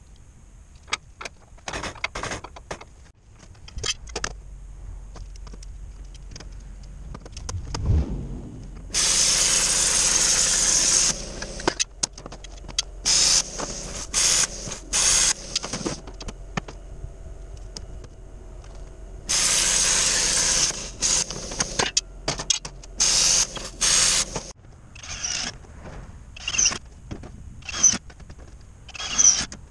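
Repeated loud bursts of a power cutting tool working sheet stainless steel, the longest lasting one to two seconds, with clicks and knocks of hand work between them.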